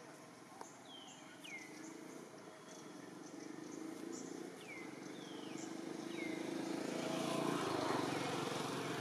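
A motor vehicle's engine grows steadily louder as it approaches, loudest near the end. Over it, a bird repeats short whistled calls that fall in pitch.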